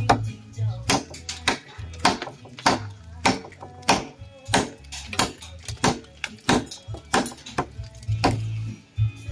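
Short chopper knife with a 7.8-inch blade chopping into a hardwood log: a steady run of sharp strikes of steel into wood, about one every 0.6 s, over background guitar music.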